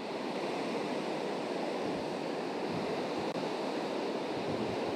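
Surf washing onto a sandy beach: a steady rush of small breaking waves.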